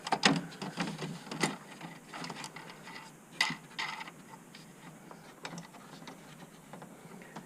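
Irregular clicks and knocks of hand tools and metal and plastic parts being handled while the battery box hold-down plate is tightened down.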